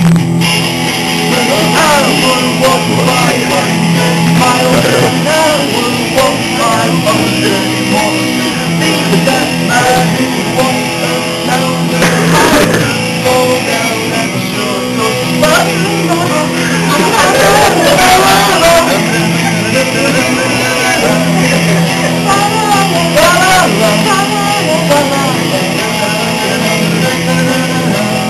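Rock music: guitar with a voice singing over it.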